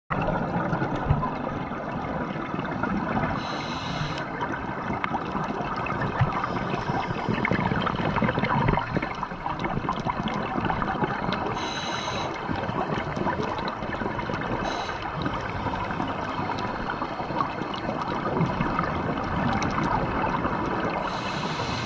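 Underwater water noise picked up by a diving camera: a steady rushing and gurgling, broken by a few short hissing bursts.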